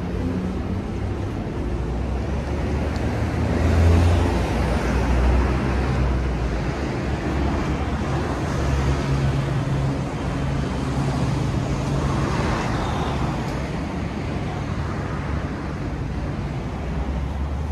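Road traffic: a steady low rumble of vehicles, with cars swelling past about four seconds in and again about twelve seconds in.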